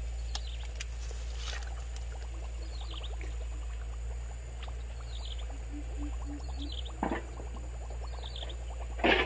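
Two splashes at the surface of a shallow lake, a short one about seven seconds in and a louder one near the end, over a steady high hiss of outdoor ambience.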